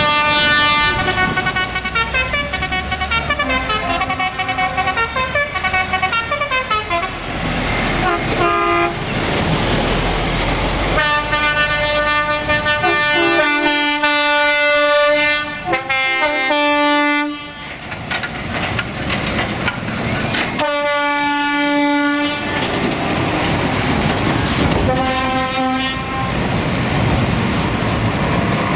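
Trucks' multi-tone air horns sounding again and again: a run of changing notes in the first several seconds, then long chord blasts, over the low rumble of diesel trucks pulling away.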